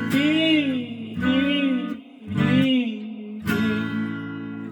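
Acoustic guitar strummed under a man's voice holding three wavering sung notes, then a new chord strummed and left ringing for the last second or so.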